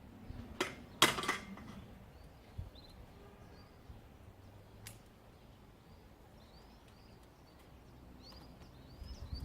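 A couple of sharp knocks about a second in and a single click near the middle, then small birds chirping near the end.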